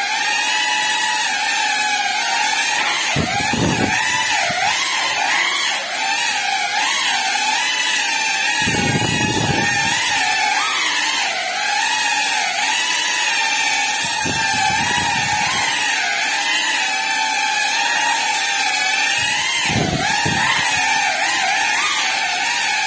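Small GEPRC FPV quadcopter's brushless motors and propellers whining, the pitch wavering up and down constantly with the throttle. Four short low rushes of noise come roughly every five or six seconds.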